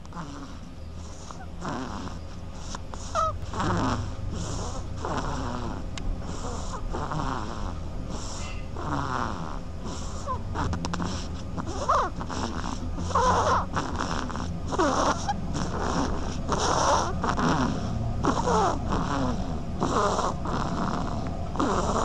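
Duckling snoring in its sleep: a steady run of short, wheezy breaths, about one or two a second, with a few short rising squeaks.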